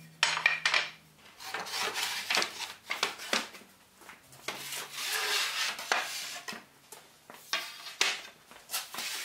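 Milled wooden boards being set down and slid against one another on a bench: a run of irregular wooden knocks and clunks mixed with scraping rubs.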